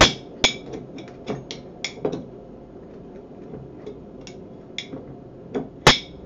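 Irregular sharp clinks and clicks of a metal utensil against a glass jar, digging out coconut oil that has set hard from the cold. The loudest clinks come at the very start and near the end.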